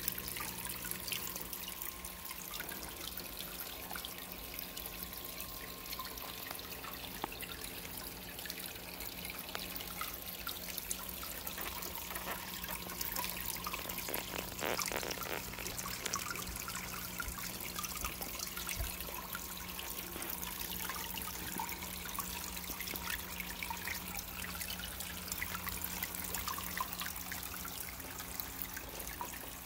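Water trickling and dripping into a planted fish tank, with a faint steady hum underneath.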